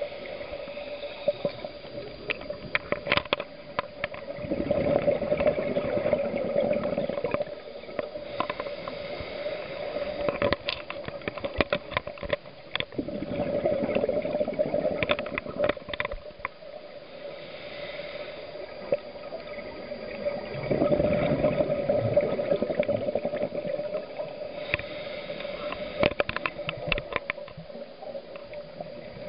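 Scuba diver breathing through a regulator underwater: the hiss of each inhalation and the gurgling rush of exhaled bubbles, about one breath every eight seconds. Under it runs a steady hum, with scattered sharp clicks.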